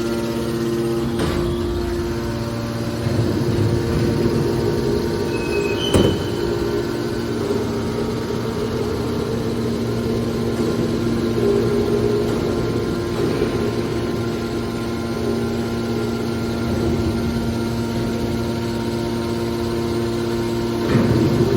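Automatic hydraulic scrap metal baler running with a steady drone, with a sharp metal clank about six seconds in.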